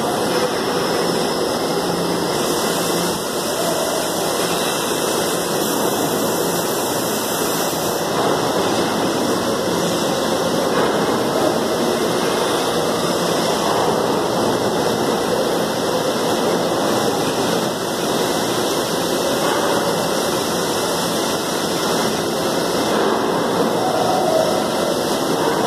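Steady, even noise of a carcass-processing hall's equipment, with no distinct knocks or tones.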